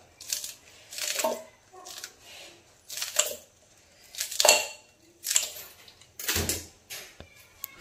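Kitchen scissors snipping fresh green chillies into a stainless steel mixer jar, a short crisp cut about once a second as the pieces drop onto the salt and sugar. A dull knock about six seconds in.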